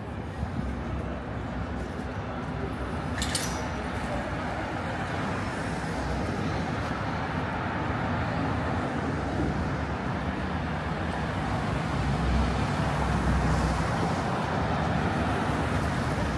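Street traffic: road vehicles running past in a steady wash of noise, with a heavier vehicle's low rumble building and fading around twelve to fourteen seconds in. A brief sharp high sound cuts in about three seconds in.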